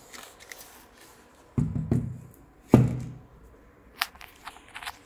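Two heavy knocks about a second apart, each with a short low ring, then a few light clicks: handling noise as the Siemens SIMATIC C7 operator unit is moved about on the workbench.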